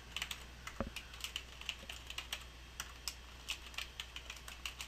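Typing on a computer keyboard: an irregular run of light key clicks, several a second.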